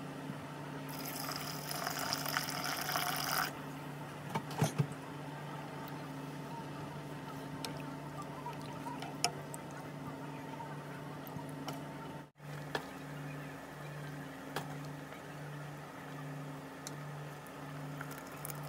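Chicken-and-tofu sauce simmering in a pot and being stirred with a silicone spatula, with a few clicks of the spatula against the pot. A hiss starts about a second in and lasts about two and a half seconds. Under it all runs a steady low hum that, about two-thirds of the way through, starts pulsing about one and a half times a second.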